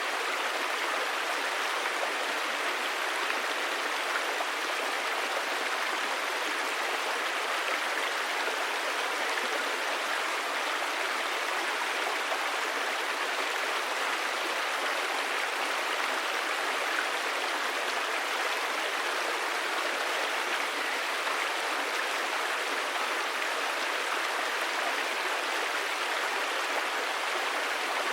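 River water rushing and babbling over stones in a steady, even flow.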